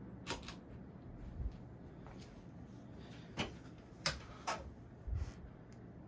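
Vintage Sears (Emerson) ceiling fan coasting down after being switched off, with a low steady hum underneath. About half a dozen light clicks and a couple of dull knocks are scattered through it; the sharpest click comes about four seconds in.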